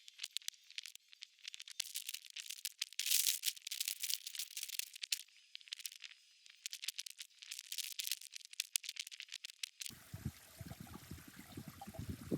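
A dry, crackling rattle of many small clicks for most of the time. About ten seconds in it cuts abruptly to water running and trickling in the small-scale dam model.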